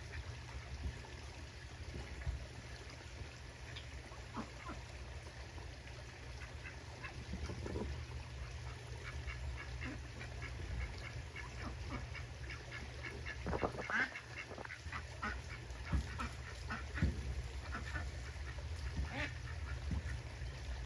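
Ducks quacking in runs of short, repeated calls, busiest and loudest through the middle of the stretch, over a steady low rumble.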